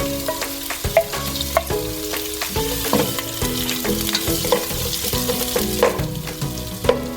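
Onions frying in coconut oil in a non-stick pan, sizzling steadily while a spatula stirs them, with irregular scrapes and taps against the pan. The onions are at the softening stage.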